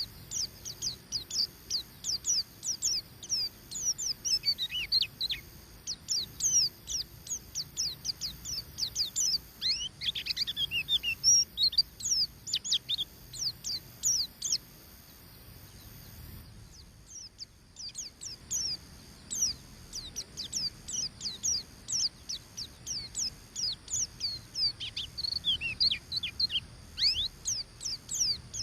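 White-eye (pleci) singing its fast 'ngeriwik' chatter: a rapid run of short, high, downward-sweeping chirps, several a second, with a brief pause about two-thirds of the way through.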